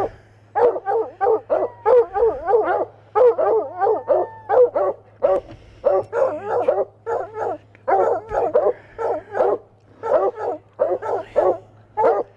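Collared hunting hounds, waiting to be turned loose, barking and yipping in fast runs of several barks a second with short breaks between runs. A steady low hum runs underneath.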